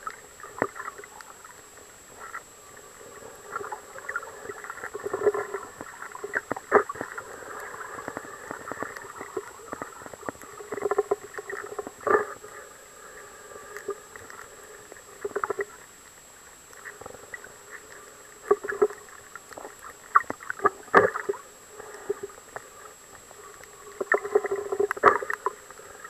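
Muffled underwater noise picked up by a waterproof camcorder's built-in microphone: irregular crackling and knocks, with swells of water movement every few seconds, over a faint steady high tone.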